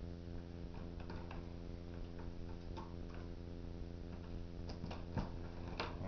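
Faint, scattered light clicks and ticks from a Cat 5 cable with a plastic RJ45 plug being handled and set down, over a steady low electrical hum.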